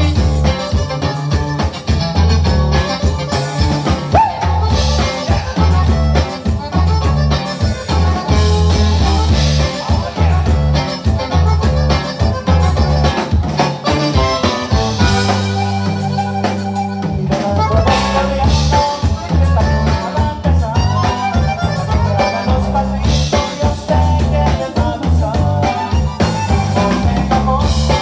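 Live conjunto band playing: a button accordion leads over strummed guitars, bass and a drum kit keeping a steady beat. About halfway through, the beat drops out briefly under held bass notes before the full band comes back in.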